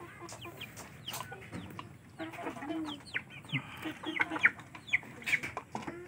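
Young Aseel Parrot chickens, about two months old, clucking and peeping: a scatter of short, high, falling calls mixed with lower clucks.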